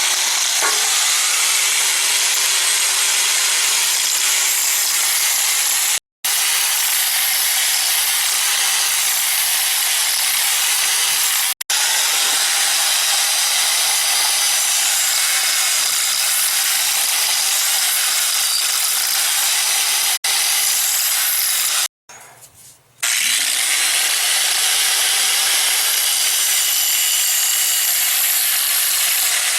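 A power grinder grinding the steel splitting wedge of an electric log splitter to sharpen its blunted edge: a loud, steady hiss of abrasive on metal over the motor's steady whine. It stops abruptly a few times, and after a break about two-thirds through, the motor's whine rises as it spins back up.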